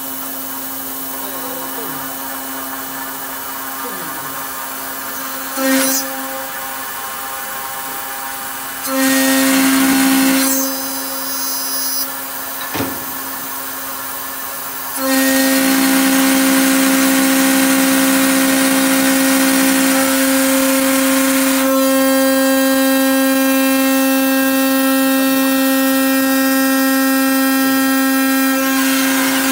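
A 4-axis CNC aluminum-profile machining centre's 9 kW spindle runs with a steady whine as it drills and mills slots in a 5 mm aluminum extrusion. It gets louder while the cutter is in the metal: briefly about six seconds in, again around nine to ten seconds, and steadily through the long slot cut over the second half.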